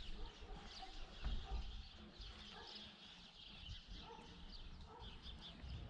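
Small birds chirping outdoors, many short high calls, over a low rumble.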